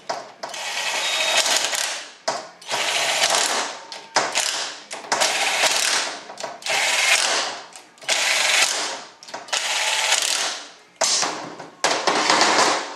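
Cordless drill/driver running in about seven short bursts of a second or two each, driving in the bolts that hold the transmission valve body sections and plate together.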